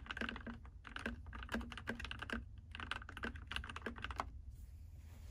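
Fast typing on a Keychron mechanical keyboard with lubed red linear switches: a quick run of key clicks that stops about four seconds in.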